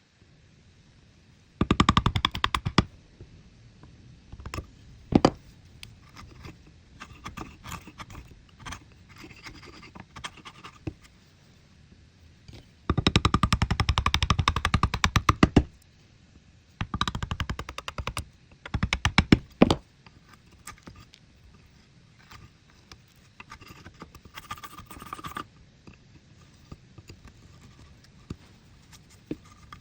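A hand tool scraping across wood in several bursts of rapid strokes, the longest about thirteen to sixteen seconds in, with single knocks and lighter scraping in between.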